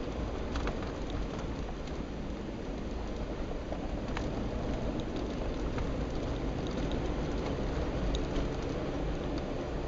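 SUV driving on a gravel dirt road, heard from inside the cabin: a steady low rumble of engine and tyres with a crunching patter of gravel and scattered sharp clicks.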